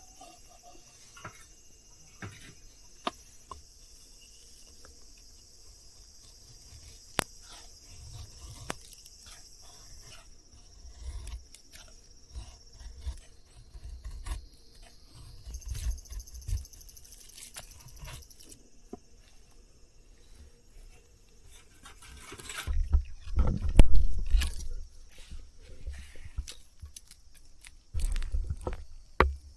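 Insects chirping in a steady high band, with scattered clicks and knocks and low rumbles. Louder low thumping and rustling comes about three-quarters of the way in.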